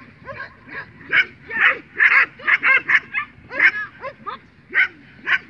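A dog barking in quick, high-pitched yaps, about three a second with short pauses between runs.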